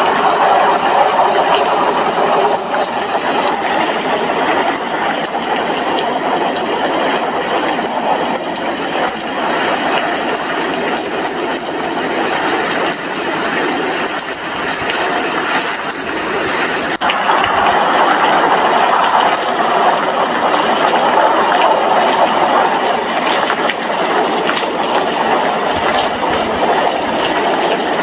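Rain falling steadily, heard at an apartment window, as a dense even patter that gets a little louder about two-thirds of the way through.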